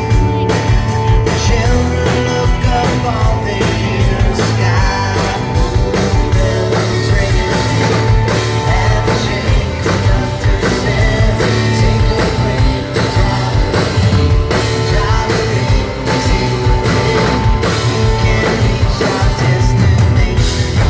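Live rock band playing a song with singing: drum kit with a steady beat, guitars and bass.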